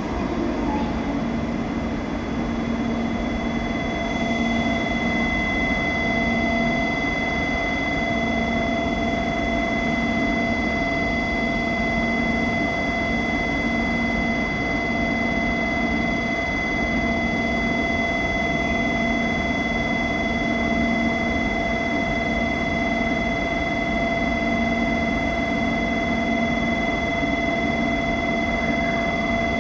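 Steady hum of an E2-series Shinkansen's onboard equipment as the train stands at the platform, with several fixed tones over a constant noise bed and no rise in pitch.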